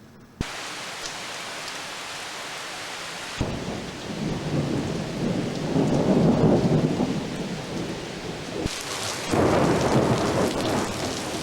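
Thunderstorm: steady heavy rain with thunder rumbling twice, in short clips that cut in abruptly.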